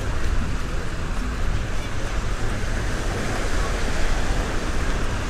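Outdoor seaside noise: wind rumbling on the microphone over the steady wash of sea surf.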